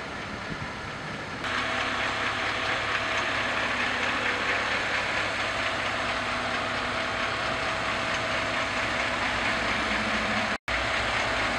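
Fire truck's diesel engine idling steadily close by, getting louder about a second and a half in. The sound cuts out for an instant near the end.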